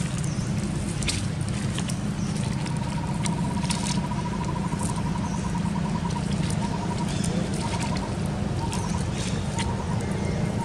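Outdoor ambience: a steady low rumble with scattered sharp clicks. From about two and a half seconds in, a fast, even trill runs for a few seconds, then returns in shorter bursts.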